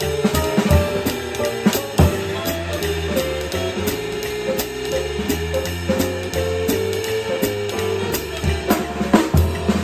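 Drum kit played along to a jazz backing track: a stick keeps a steady pattern on the ride cymbal over a bass line and held chords, with a few harder drum hits near the end.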